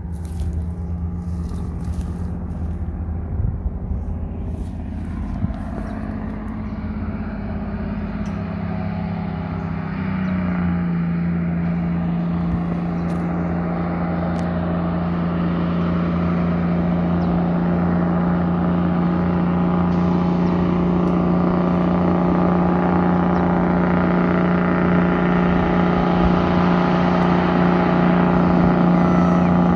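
Loaded heavy truck's diesel engine running on its engine brake down a grade, a steady engine note that grows gradually louder as the truck approaches. Its pitch steps down slightly about ten seconds in.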